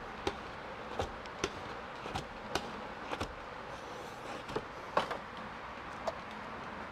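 About ten short, sharp clicks and taps at irregular intervals, from a plastic hard-card squeegee working tint film down at the bottom edge of a door window and against the door frame, over a steady background hum.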